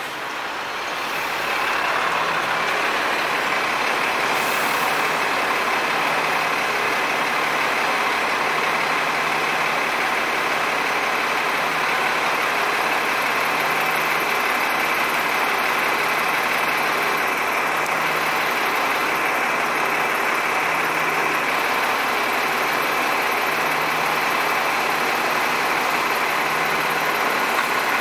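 Steady city road-traffic noise with an engine idling: an even hiss with a faint low hum that comes and goes.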